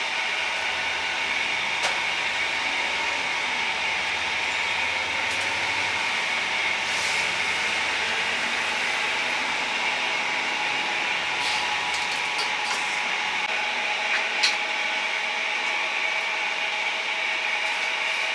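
Steady hiss from a charcoal chicken-grilling stall, with a faint steady whine under it and a few sharp clicks, the loudest about fourteen seconds in.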